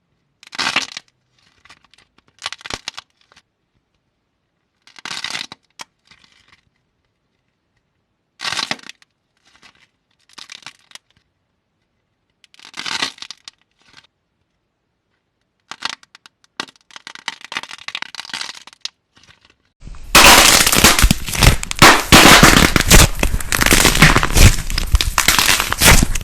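Dried clay cracking and crumbling as it is pressed and crushed: short crunchy crackles every second or two, then about three-quarters of the way through a loud, continuous crunching.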